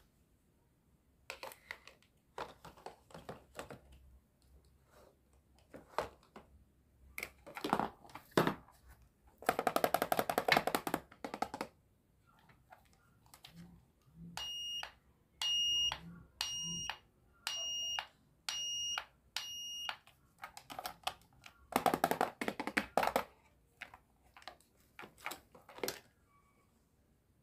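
Hard plastic toy kitchen pieces clicking and clacking as they are set down and handled. Twice a toy appliance buzzes for about two seconds. In the middle comes a run of six or seven short, high electronic toy beeps, about one a second.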